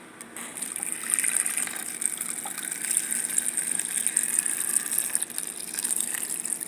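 Filtered water running steadily into a blender jar packed with chopped greens and vegetables, starting about half a second in.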